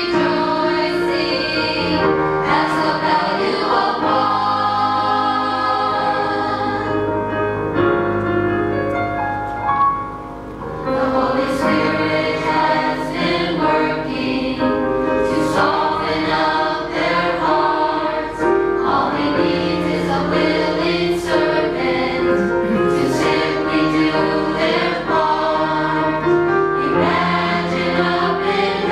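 Mixed church choir of men and women singing together, briefly softer about ten seconds in.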